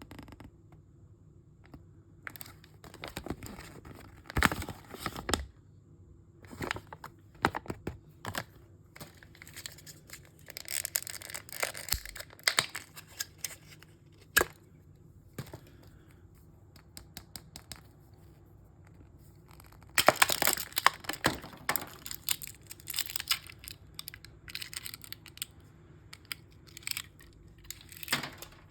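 Mystery bag packaging being torn open and crinkled by hand: irregular rustling and tearing with sharp crackles, in two busier bouts partway through.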